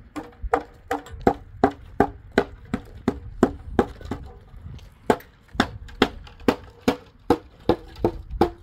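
A steady run of sharp, even strikes, about three a second, each with a brief ringing note.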